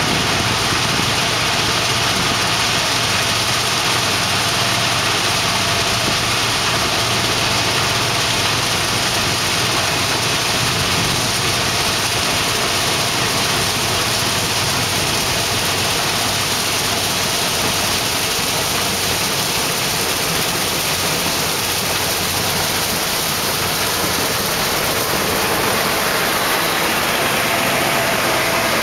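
Combine harvester running steadily while harvesting soybeans, heard from inside the cab: an even, unbroken machine noise of engine and threshing.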